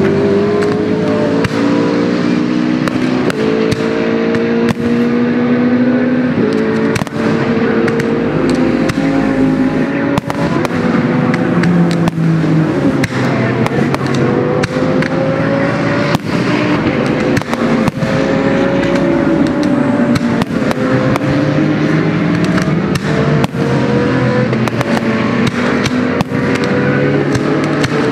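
GT race car engines accelerating on the circuit, several at once, each note climbing and stepping back down through upshifts, with repeated firework bangs and crackles over them.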